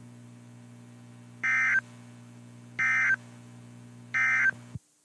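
Emergency Alert System end-of-message signal from a NOAA Weather Radio broadcast: three short digital data bursts about 1.4 s apart, over a steady low hum. The audio cuts off abruptly just before the end.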